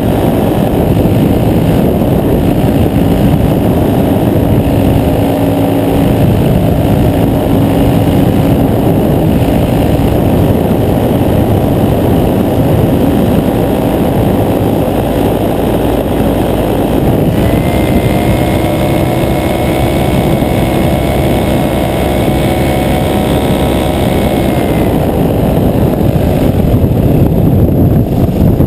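Paramotor (backpack propeller engine) running loudly and steadily in flight. Past the middle, for several seconds, its note settles into a clearer steady pitch before blending back into the din.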